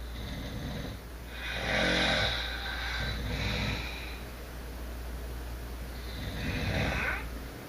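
Snoring: slow rattling breaths every few seconds, the loudest about two seconds in, over a steady low hum.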